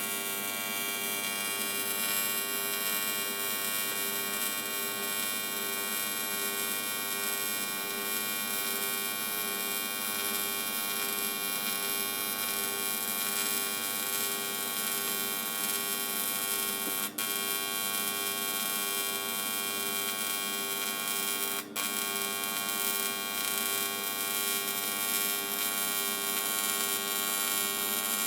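TIG welding arc buzzing steadily while a boost-tube flange is welded, briefly breaking twice, about 17 and 22 seconds in.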